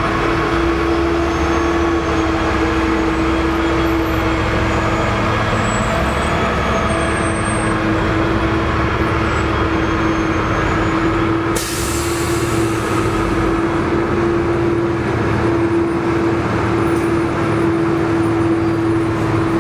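Heavy snow-clearing truck running close by, a steady diesel drone with a constant whine over it. About halfway through comes one sharp air-brake hiss that fades over a second or two.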